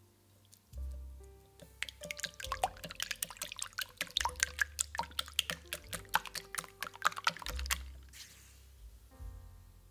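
A wire balloon whisk beating raw eggs in a glass bowl: rapid clicking and tapping of the wires against the glass for about six seconds. Near the end sugar is poured in with a short hiss. Soft background music plays throughout.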